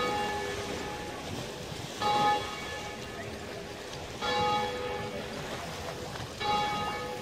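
A large bell tolling slowly: four strikes about two seconds apart, each ringing on and fading before the next.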